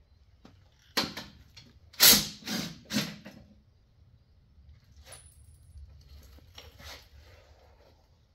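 A hand-held tool working the oil pan bolts loose under a raised car: four short, loud bursts about half a second to a second apart, then softer rattling and clinks of metal a few seconds later.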